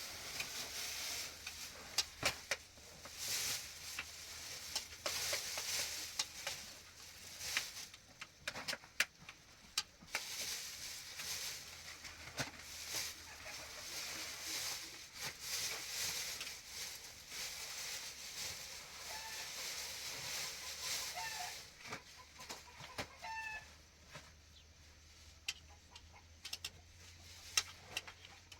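Chickens clucking, with a few short calls about twenty seconds in, over a steady crackling hiss dotted with sharp clicks that dies away near the end.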